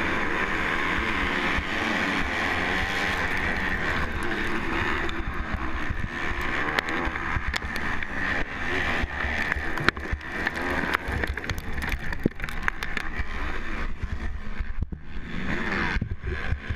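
A pack of motocross bikes revving hard off the start of a race, heard up close from a rider's own bike, with wind on the microphone. After about five seconds the sound thins to the near bike's engine with many sharp ticks, and it dips briefly shortly before the end as a rider ahead goes down.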